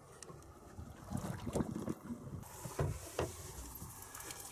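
Water splashing and slapping at the side of a small fishing boat, with two sharp knocks a little under a second apart in the second half.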